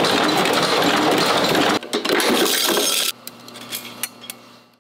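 Loud, even noise of a screw-making machine that breaks off a little under two seconds in, then metal parts clinking against one another over a low hum, fading out near the end.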